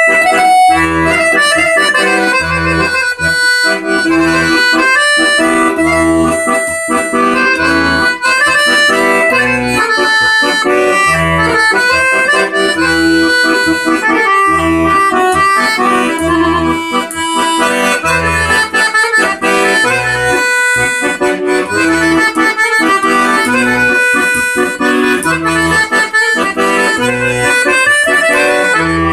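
Melodia piano accordion played solo: a melody on the right-hand keys over a steady pattern of low bass notes from the left-hand buttons, with the bellows working continuously.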